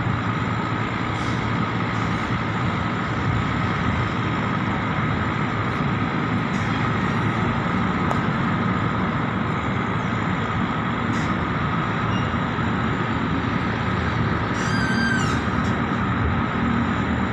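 Boat engine running steadily, a constant drone heard from on board. There is a brief high chirp about fifteen seconds in.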